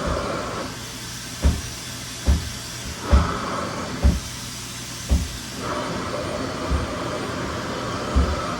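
RevAir reverse-air hair dryer running, a steady suction-and-airflow hiss as the wand draws hair into its tube, with a dull low thud about once a second.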